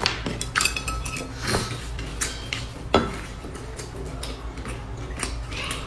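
Chopsticks clinking against a stainless-steel-lined bowl: a series of sharp clinks at uneven intervals, some ringing briefly, the loudest about three seconds in.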